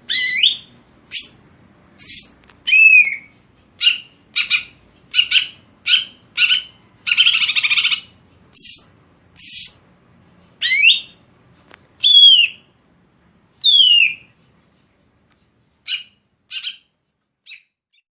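Cucak ijo (green leafbird) singing: a rapid run of sharp chirps and falling whistles with one longer, harsh buzzy note in the middle. The notes thin out near the end and stop.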